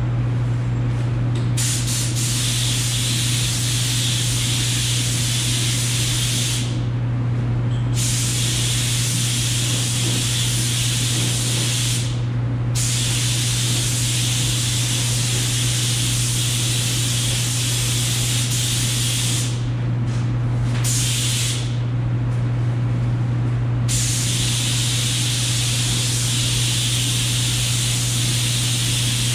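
Air-powered gravity-feed spray gun hissing as it sprays build primer, starting about a second and a half in and stopping briefly several times as the trigger is released between passes. A steady low hum runs underneath throughout.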